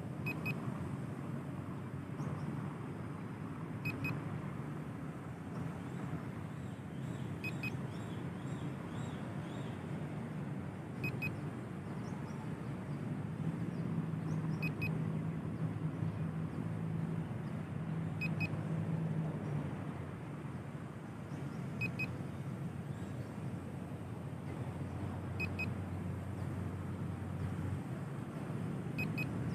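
Steady low rumble of road traffic, with a passing vehicle's engine hum for several seconds around the middle and a lower one near the end. A short double beep repeats about every three and a half seconds.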